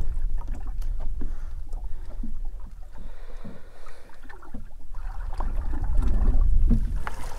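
Water slapping against the hull of a drifting boat, with an uneven low rumble of wind on the microphone, louder about two-thirds of the way through, and scattered light clicks of tackle being handled.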